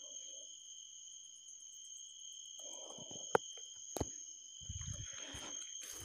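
Night insects trilling as a steady high-pitched chorus. Footsteps on a dirt path come in about halfway through and again near the end, with two sharp clicks from handling in between.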